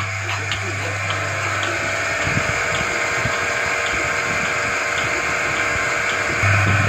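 Milking machine running: the vacuum pump's steady hum and hiss, with the pulsator clicking about twice a second. The hum grows louder near the end.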